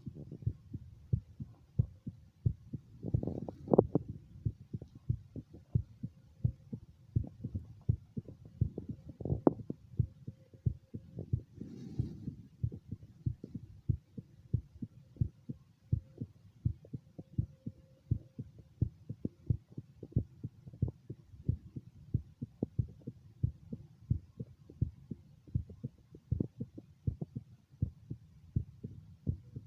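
A human heartbeat heard through a stethoscope at the mitral area: a steady, even run of short low lub-dub thuds.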